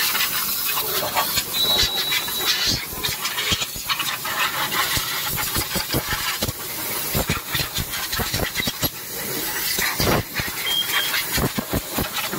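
Compressed-air blow gun hissing in short, repeated blasts as dust is blown off a car's engine bay.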